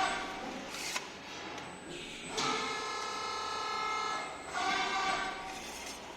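Hydraulic servo pump of a CNC press brake whining in steady pitched spells as the ram cycles. There is a sharp click about a second in, a pause, then the whine starts again about two and a half seconds in and runs for several seconds.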